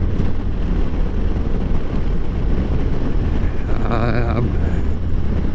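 Harley-Davidson Road Glide Special's Milwaukee-Eight V-twin running steadily at riding speed, with wind noise on the helmet microphone. A brief wavering pitched sound comes about four seconds in.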